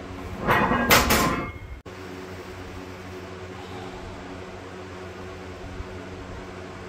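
A loud clatter about a second long that cuts off sharply, followed by a steady low hum.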